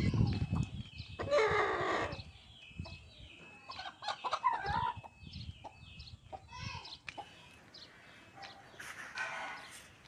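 Aseel chickens clucking and calling, with a louder, longer call about a second in and another near the end, and many short calls in between.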